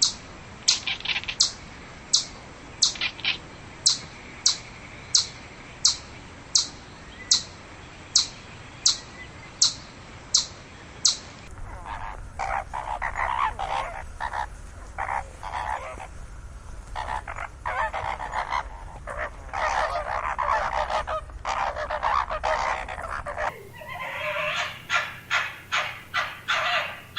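Three separate recordings of animal calls: first a regular series of short, high calls about every two-thirds of a second, then from about 11 seconds in a dense clamour of many overlapping calls, and from about 23 seconds a quicker run of sharp calls.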